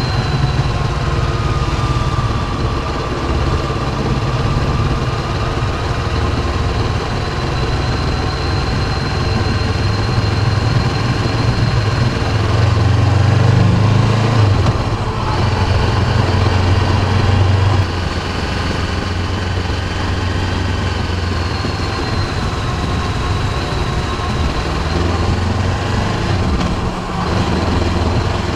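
Honda CB500X parallel-twin motorcycle engine running on the move, with faint high-pitched tones that drift slowly up and down above it; the owner is chasing a high-pitched chirping from the front of the bike that comes when he is off the throttle with the clutch engaged.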